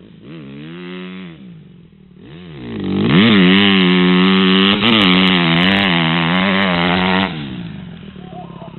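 Dirt bike engine revving: two short rises and falls in pitch, then a loud, sustained high-rev run for about four seconds as the bike passes close. Near the end the revs cut back and the engine fades away.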